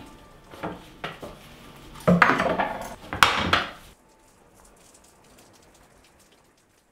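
Plates and cutlery clattering on a wooden table as it is set: a few light clicks, then two louder clatters that ring briefly, about two and three seconds in.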